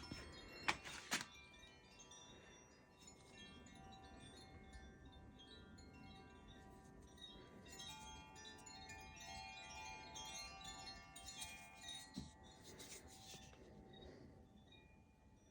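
Wind chimes ringing softly, many overlapping tones sounding and fading as they are struck. There are two sharp clicks about a second in.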